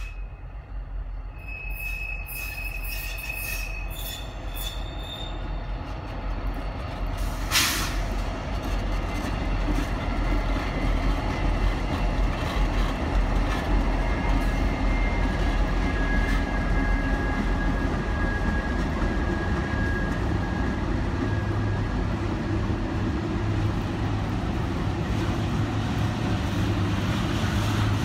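A lashup of diesel freight locomotives approaches and passes at close range on a curve, its engines rumbling louder as it draws level. Steel wheel flanges squeal against the rail in thin, high, held tones. A single short sharp sound stands out about seven seconds in.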